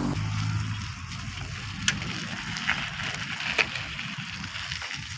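Outdoor road traffic noise: a steady hiss with a low rumble that eases after the first second, and three sharp clicks.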